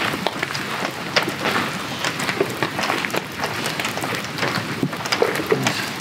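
Heavy rain falling through a forest: a dense, steady patter with scattered sharper drips at irregular moments.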